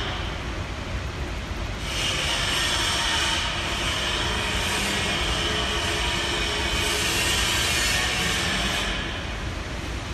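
A double-wheel wick dipping machine running: a steady mechanical rumble from its rotating drums and thread guides. A high hiss comes in about two seconds in and drops away near the end.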